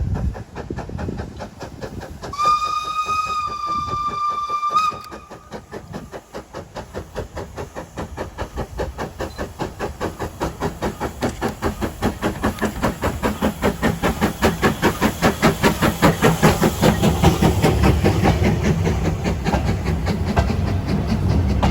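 Hunslet 0-6-0 steam locomotive sounding its whistle once, a single steady note held for about two and a half seconds. It then starts away, its steam exhaust beats quickening and getting louder as it picks up speed.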